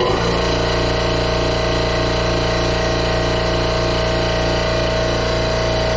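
Fire sprinkler dry-system air compressor running steadily with an even motor hum as it fills the dry-pipe system with air.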